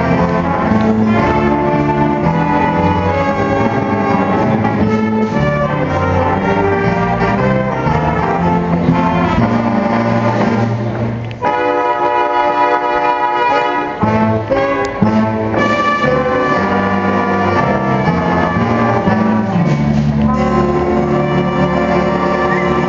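A school band plays a piece, with saxophones and brass carrying it. About halfway through, the low instruments drop out for a couple of seconds, leaving only held chords, before the full band comes back in.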